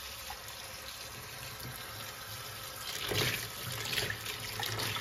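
Kitchen tap running into a bowl of greens in a stainless steel sink, with water splashing as a hand presses and swishes the leaves; the splashing grows louder about three seconds in.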